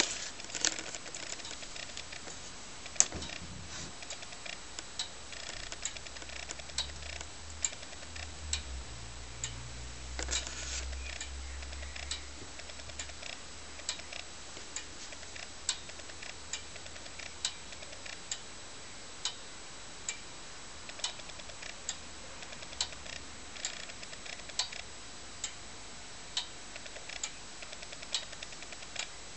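Pendulum escapement of a DUFA (Etzold & Popitz) longcase clock ticking steadily, a little under one tick a second, with the ticks alternating louder and softer in a tick-tock.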